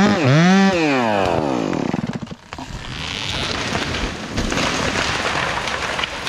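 Chainsaw running under load, its pitch rising and falling about twice a second, then winding down about a second in. The felled hemlock then crackles and crashes down through the surrounding branches and hits the ground with a heavy thud at the very end.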